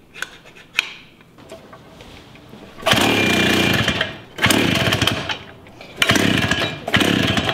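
Pull-starting a two-stroke concrete-saw engine on a vintage minibike. Four rope pulls begin about three seconds in, each spinning the engine over for about a second without it catching. The carburettor bowl has no fuel in it yet.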